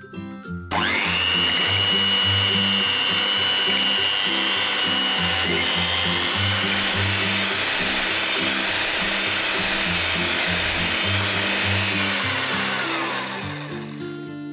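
Blaupunkt electric hand mixer with twin beaters whipping cream in a glass bowl: it switches on suddenly about a second in, runs with a steady high whine, and winds down near the end with a falling whine.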